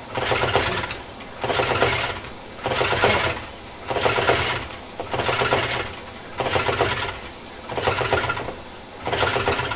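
Rotax 582 two-stroke engine and its reduction gearbox being turned over by hand at the propeller, a mechanical clatter with each pull, about eight pulls evenly spaced a little over a second apart. The prop is pulled through to loosen gearbox oil made very thick by the cold before priming.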